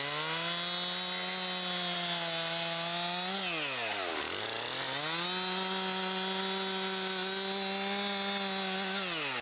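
Chainsaw running at high revs through the wood, holding a steady pitch. About four seconds in, the pitch falls away as the throttle eases off, then climbs back to the same high speed. It drops again at the end.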